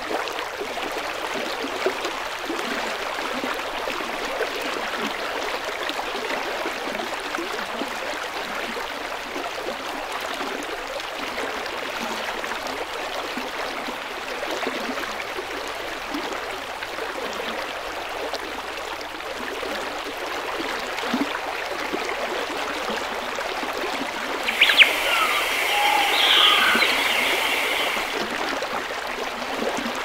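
Steady rush of running water. A songbird calls for a few seconds near the end.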